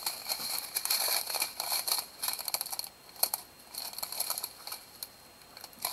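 Plastic packaging crinkling and rustling as a strip of sealed diamond-painting drill bags is handled, with small clicks from the resin drills shifting inside. It is busiest in the first couple of seconds and thins out later.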